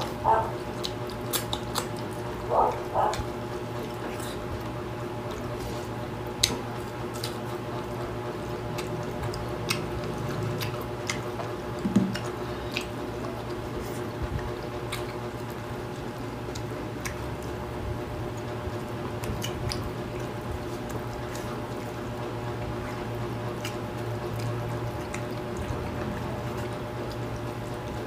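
Close-up eating sounds: wet chewing, lip smacks and small mouth clicks as two people eat rice and fish with their hands, over a steady low hum.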